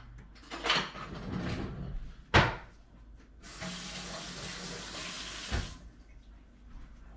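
A sharp knock, then a kitchen tap running for about two seconds before it is shut off.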